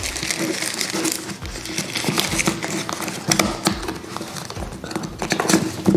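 A cardboard accessory box is handled and packed up by hand: a run of small knocks and clicks with the scraping and rustling of cardboard against a wooden table.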